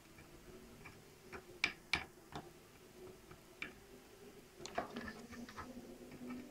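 Faint, irregular clicks and taps of a multimeter's metal probe tips touching the pins and components of a desktop motherboard during a continuity check, in two small clusters, about two seconds in and again about five seconds in.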